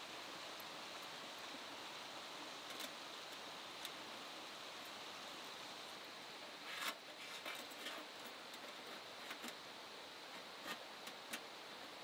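Steady, faint rushing of a river flowing through the forest. From about halfway in, a few light clicks and rustles.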